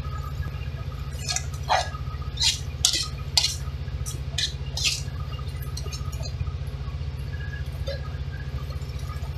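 Metal spoon clinking and scraping against a steel wok while stirring a thick tomato sauce, a run of clinks in the first half, over a steady low hum.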